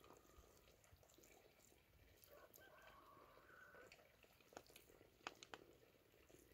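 Near silence, with a few faint, soft clicks in the second half from hands working spice paste into a raw whole chicken.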